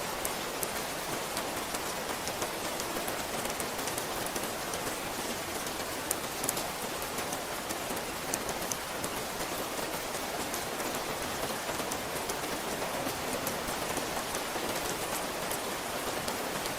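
Steady rain falling, an even hiss with many individual drops ticking sharply close by throughout.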